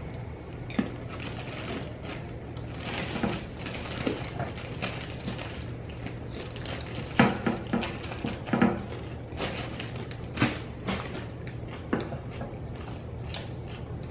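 Irregular crinkles, clicks and light knocks of hands handling a plastic zip-top bag and a plastic scoop, the loudest pair of clicks about seven and eight and a half seconds in.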